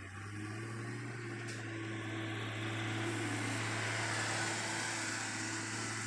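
Caterpillar 140G motor grader's diesel engine running steadily as the grader pushes gravel sub-base with its blade, growing louder as it comes close and peaking about four seconds in.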